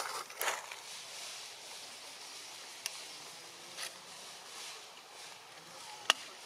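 Quiet outdoor ambience: a faint steady hiss with a few short rustles at the start and scattered sharp clicks, the loudest a crisp click about six seconds in.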